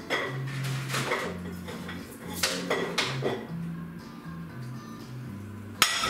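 Crockery and cutlery clinking and clattering as dishes are handled at a kitchen sink, in separate knocks about a second apart, with the sharpest clatter near the end. Music from a radio plays underneath.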